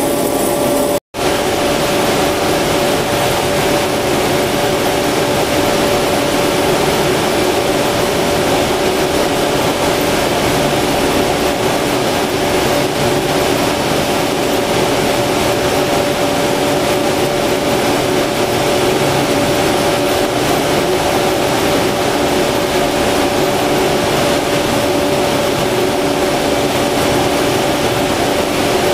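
Cremation furnace machinery running steadily: an even rushing blower noise with a constant hum. The burner's ignition is off at this point. The sound cuts out for an instant about a second in.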